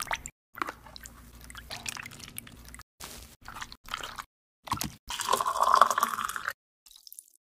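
A quick run of kitchen sounds cut together: peach peels going into a pot of water, a wooden spatula stirring pink peach-skin liquid in the pot, then the juice poured into a glass over ice. The pour, a little past halfway, is the loudest and longest.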